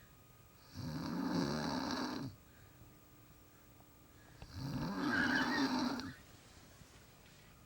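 A woman snoring loudly in a steady rhythm: two long snores, each about a second and a half, roughly four seconds apart, with quiet between.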